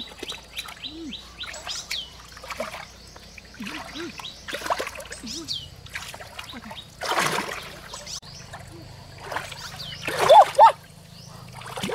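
Water splashing in shallow pond water, a splash every two or three seconds, the biggest about seven seconds in. Birds chirp in the background.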